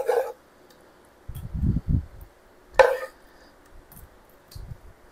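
Kitchen utensil knocking in a baking pan while food is spread around it: two sharp clacks about three seconds apart, with dull low thumps between them.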